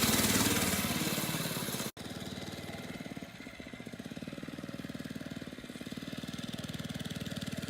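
Mini bike's small engine running steadily at a low, even idle-like pace, with a brief cut about two seconds in.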